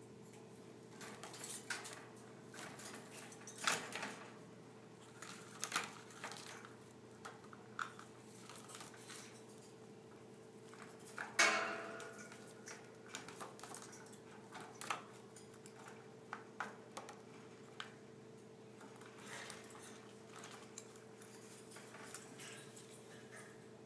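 A parrot in a post-surgery recovery collar clambering around its wire cage: scattered light metallic clinks and taps on the bars, with one louder clatter about eleven seconds in.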